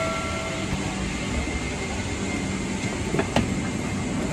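Steady hum and hiss of a parked airliner cabin with its ventilation running, and a single sharp click about three seconds in.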